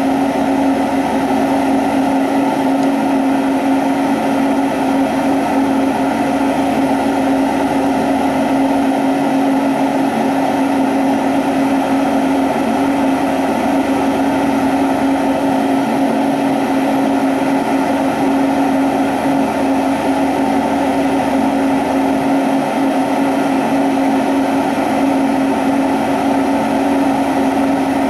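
Glassworking bench torch burning: a steady rushing flame noise with a constant low hum under it.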